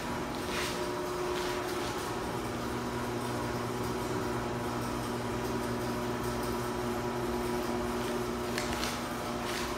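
Steady hum of an electric fan running, with a few faint clicks.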